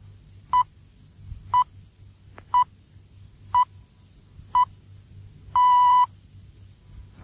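BBC Greenwich Time Signal ('the pips') received over shortwave radio: five short, high beeps one second apart, then a longer sixth beep, whose start marks the exact hour.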